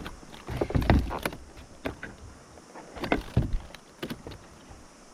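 Water splashing and knocking against a kayak's hull in irregular bursts, loudest about a second in and again around three seconds in.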